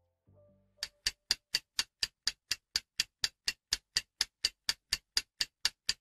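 Clock-ticking sound effect: sharp, even ticks about four a second, marking a countdown timer for solving the puzzle. A few notes of background music end just before the ticking starts, within the first second.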